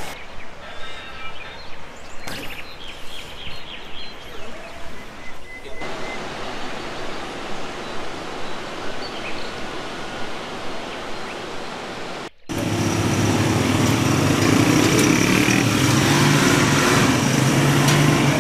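Fast, rocky river rushing with a steady, even noise. After a sudden cut about twelve seconds in, an engine runs steadily at idle, louder than the river.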